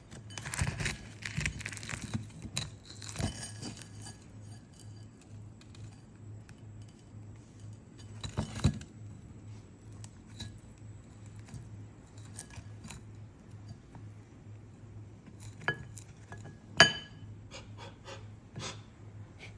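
Scattered sharp clicks and clinks, with a cluster in the first few seconds and the loudest single click about seventeen seconds in, over a steady low hum.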